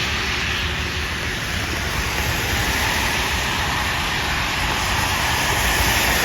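Steady noise of road traffic on a wet street: the hiss of car tyres on the wet road.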